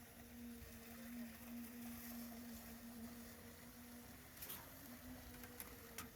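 Faint, steady engine hum, with a few light ticks near the end.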